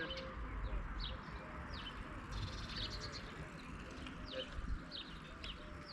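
Small birds chirping, a steady scatter of short, high notes that each slide downward, repeated every half second or so over a steady background hiss.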